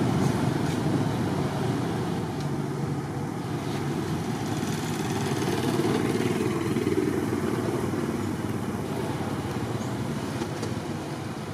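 Steady low rumble of motor-vehicle engines, slowly swelling and easing off.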